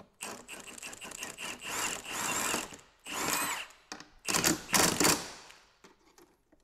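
Impact wrench run in several short bursts, driving mounting bolts tight against nuts held on the back side.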